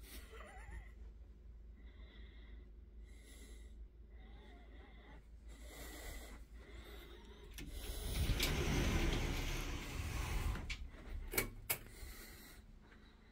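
A sliding closet door rolling along its track, a rumbling rush about eight seconds in that lasts a couple of seconds, followed by two sharp clicks. Before it, soft breathing and phone handling noise.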